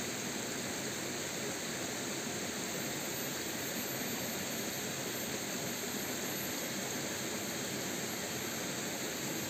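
Steady rushing of a rocky forest stream: an even hiss of flowing water with no breaks.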